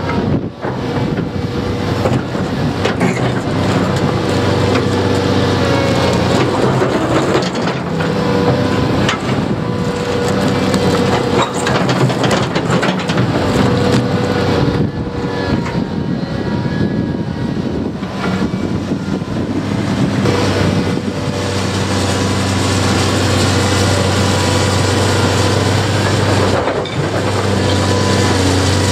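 Caterpillar 330D excavator's diesel engine running steadily under load, with a wavering hydraulic whine, while the steel bucket teeth scrape and knock against a concrete slab and broken concrete grinds and cracks. The knocks and scrapes come irregularly.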